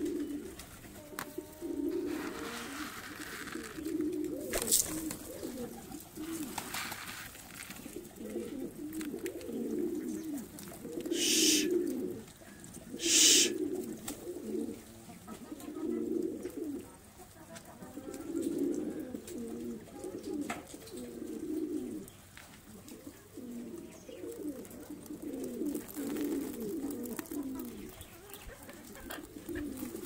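A flock of domestic pigeons cooing, low coos overlapping one after another. A few short rustling hisses cut in, the two loudest a little before halfway.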